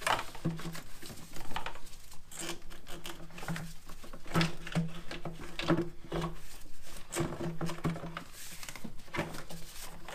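Irregular clicks and knocks of the BMW N52's plastic intake manifold bumping against engine-bay parts as it is worked up and out by hand, with a low hum coming and going underneath.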